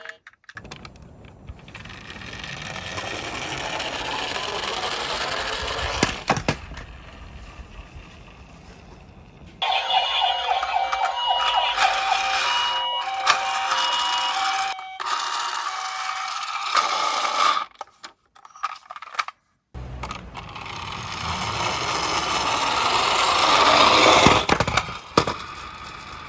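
Toy minicars rolling down a slope, the rolling noise swelling as they gather speed, with a toy electronic siren sounding in short, stepped beeping tones through the middle.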